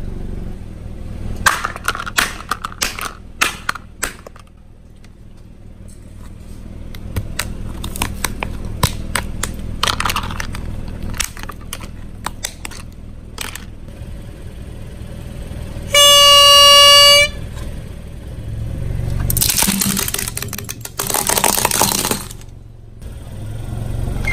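Scattered clicks and rattles of hard plastic as a gold plastic star ornament is handled, then a loud, steady horn beep lasting about a second, followed by a few seconds of loud rustling noise.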